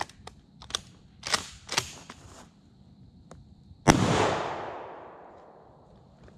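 A single shotgun shot about four seconds in, with a long echo that dies away over about two seconds. A few short, quieter clicks and crackles come before it.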